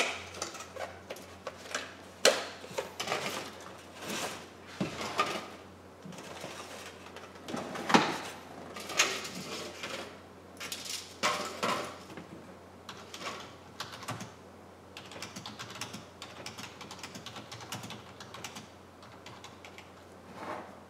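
Irregular clicking and knocking of small hard objects, with a few louder clacks among the lighter clicks.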